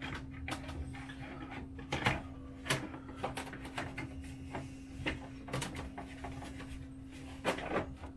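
Handling noise from the hood of a 1/5-scale Losi 5T truck body as it is set in place: irregular clicks and knocks, the loudest about two seconds in and a pair near the end.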